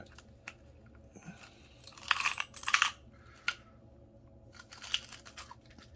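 Small metal objects being handled and rummaged through: scattered light clicks and clinks, with two short rustling scrapes about two seconds in.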